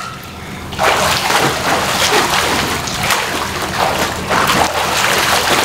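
Swimming-pool water splashing and sloshing as people swim and move about in it, picking up about a second in and continuing busily.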